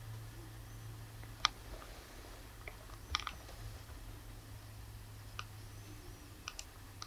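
Quiet room tone with a low steady hum, broken by a handful of faint, sharp clicks and taps a second or two apart.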